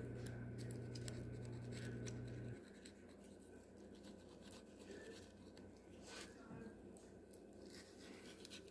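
Faint scraping and light clicks of a fillet knife cutting a trout along its backbone on a plastic cutting board. A low steady hum runs underneath and stops about two and a half seconds in.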